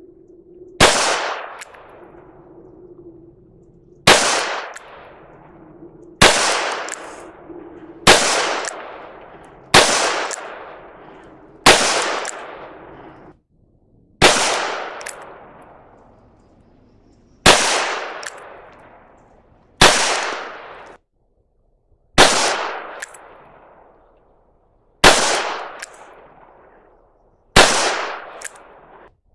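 Ruger GP100 .357 Magnum revolver firing slow, single shots, twelve in all, one every two to three seconds. Each shot is a sharp, loud crack followed by a long echoing tail.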